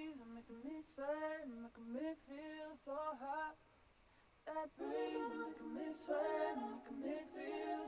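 Quiet singing from a compilation soundtrack: a voice with little or no backing, sung in short phrases with bending notes and brief pauses. From about halfway through, a second voice or harmony comes in alongside it.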